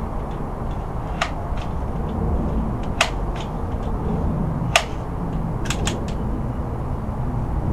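Crosman M417 multi-stroke air rifle being pumped up between shots: a sharp mechanical click about every two seconds as each pump stroke is worked, then a quick run of lighter clicks, over a steady background rumble.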